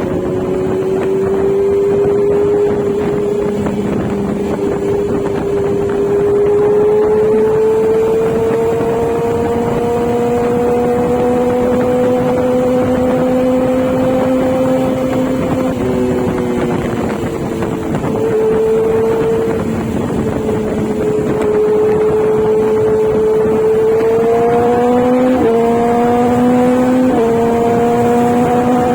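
Kawasaki Z900's inline-four engine running under way, its note climbing slowly and then jumping in pitch a few times in the second half as gears change, with wind rushing over the microphone.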